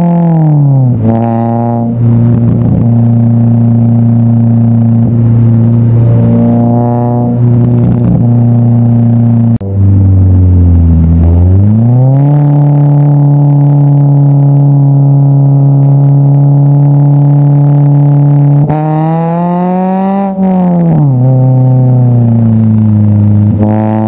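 Car engine fitted with an aftermarket exhaust header, running with a raspy exhaust note. The engine pitch drops near the start, holds steady, dips and climbs back around the middle, then rises and falls once more near the end.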